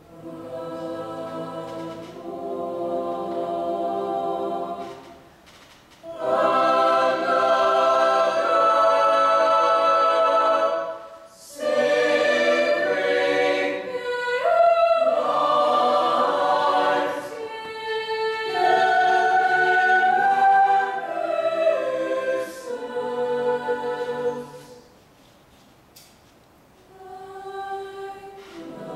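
Mixed-voice high school chamber choir singing sustained chords in phrases, beginning softly and growing louder after about six seconds, with short breaks between phrases, the longest near the end.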